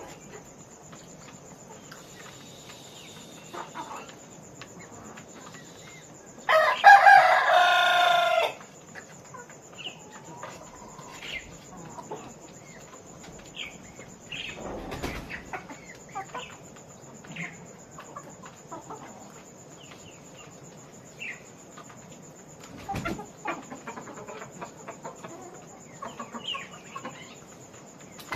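Chickens clucking and calling, with one loud crow about two seconds long starting about six and a half seconds in.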